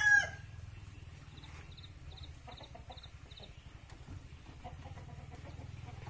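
A rooster's crow cutting off about a quarter second in, then chickens clucking faintly over a low steady hum.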